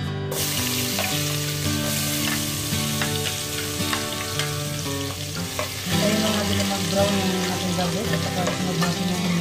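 Minced garlic dropped into hot oil in a pot, setting off a steady sizzle that starts suddenly in the first moment. Near the end a spoon stirs the garlic around in the oil.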